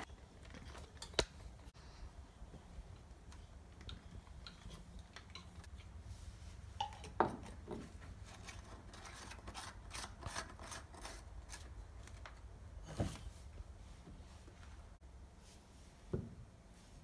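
Scattered clicks, clinks and knocks of tools and pipe fittings being handled, with a quick run of small clicks in the middle and a few sharper knocks, over a steady low hum.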